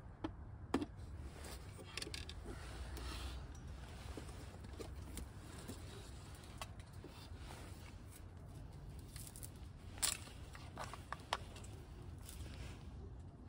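Handling noise from a portable power station being set up: scattered clicks and taps as cables and a lamp are plugged in and moved, with short rustles of cardboard and bubble wrap. The sharpest click comes about ten seconds in.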